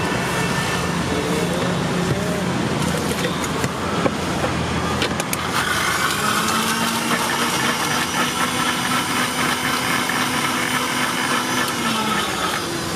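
Bajaj electric mixer-grinder blending pomegranate seeds with milk: a steady motor whine that starts about six seconds in and runs for about six seconds before stopping near the end. Street traffic noise underneath throughout.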